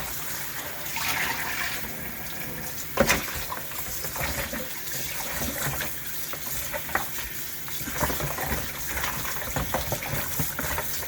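Kitchen tap running into a sink while raw chicken pieces are washed by hand, with splashing and scattered knocks against the sink or bowl; the loudest knock comes about 3 s in.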